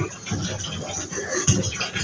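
Water running into a bath, picked up by a phone, heard as an irregular, choppy garble with voice-like fragments.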